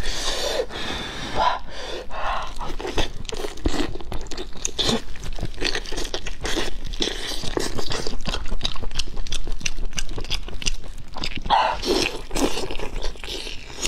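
Close-miked chewing and biting of braised pork on the bone: a dense, irregular run of wet mouth clicks and crunches of skin and gristle.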